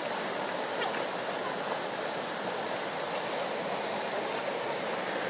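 Fast, shallow river rushing over rocks in a steady, unbroken rush of white water.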